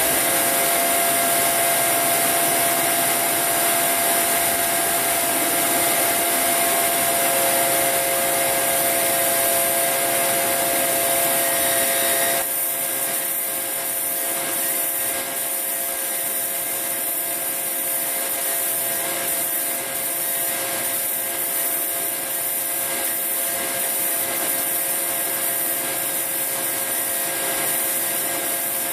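Belt grinder running steadily, its belt grinding the steel of a cut-down CO2 cylinder to clean up the cut edge and strip the paint. The sound shifts slightly about twelve seconds in.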